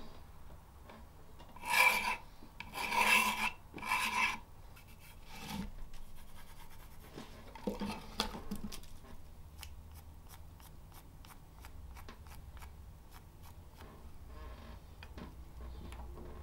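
A pointed metal marking tool scratches across a quartersawn Jacaranda board in three loud strokes about a second apart, a few seconds in. Lighter scraping comes midway, then small scattered ticks and knocks of handling.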